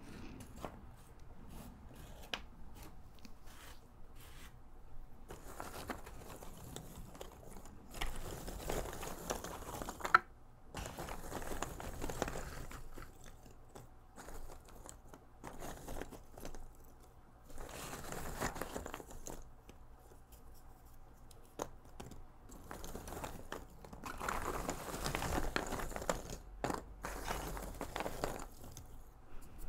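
Loose cardboard jigsaw puzzle pieces being rummaged and stirred by hand in a box, in rustling, clattering bursts a few seconds apart. Near the start there are lighter clicks of single pieces being picked up and set down, and about ten seconds in there is one sharper click.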